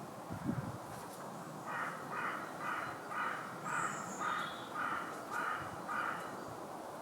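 Pigeon giving a run of about eight short, high-pitched calls, roughly two a second. A brief low thump comes about half a second in.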